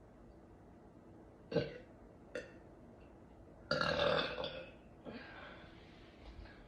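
A woman burping deliberately: two short burps, then a long, loud burp about four seconds in.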